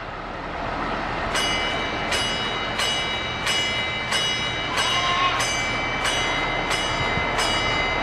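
A parrot rings a small hand bell about ten times, evenly about 0.7 s apart, starting about a second and a half in. It is counting out the answer in a trained math trick.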